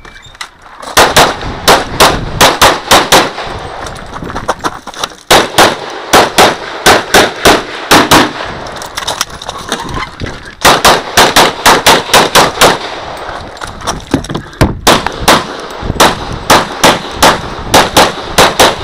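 Glock 35 .40 S&W pistol fired rapidly on a practical-shooting course, in four quick strings of shots with pauses of about two seconds between them.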